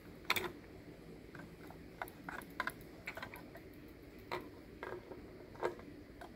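Plastic toy figures and a plastic toy car being handled on a wooden tabletop: scattered light clicks and taps, about a dozen, at uneven intervals.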